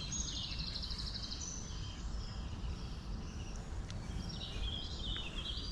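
Small birds singing in short, rapid high trills, once near the start and again about four seconds in, over a steady low background rumble.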